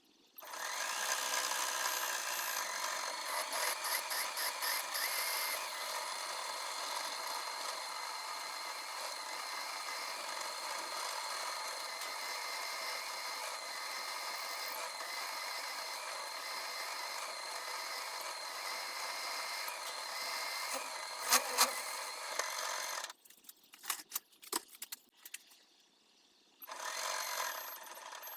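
A small electric machine tool runs at a steady speed, with a sharp knock about three-quarters of the way through. It then stops, a few clicks follow, and it starts up again briefly near the end.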